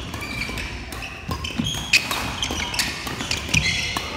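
Badminton doubles rally: sharp racquet-on-shuttlecock hits, the loudest about two seconds in and another about a second and a half later, among the short squeaks of court shoes on the hall floor.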